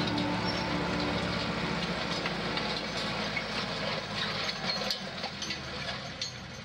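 Tractor running with an Eco-Dyn tillage seed drill in tow, the drill's metal parts rattling and clicking over the ground; the sound slowly fades out.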